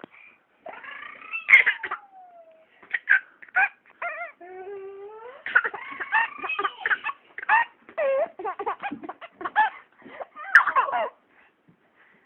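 A baby fussing and squealing and a cat meowing: a quick run of short, high-pitched cries, some sliding down in pitch and some rising.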